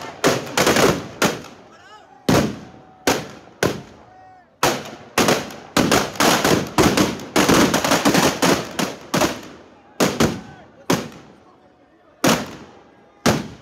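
Firecrackers packed inside a burning Ravana effigy going off in a rapid, irregular string of loud bangs, most tightly bunched in the middle.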